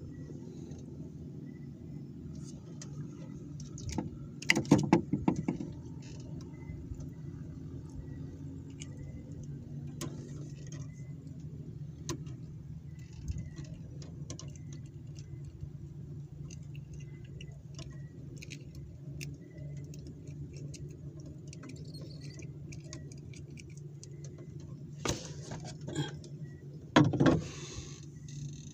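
A freshly caught fish being handled and unhooked on a fishing line in a wooden boat: scattered small clicks and taps, with two louder bursts of knocking and rustling, about five seconds in and again near the end, over a steady low hum.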